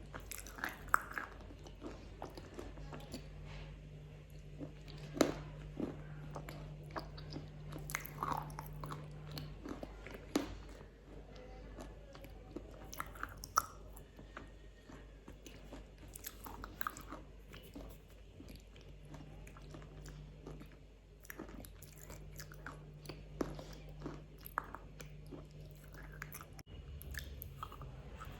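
Close-miked chewing of a KitKat wafer bar, with scattered sharp crunches as bites break the wafer, between quieter stretches of chewing.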